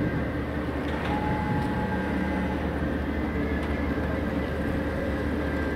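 Steady low hum with faint high steady tones from a standing ES2GP Lastochka passenger train idling at the platform, its onboard equipment running, with a few faint clicks.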